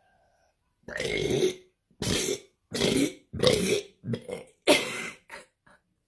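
A woman burping several times in quick succession: one long burp about a second in, then about five shorter ones close together.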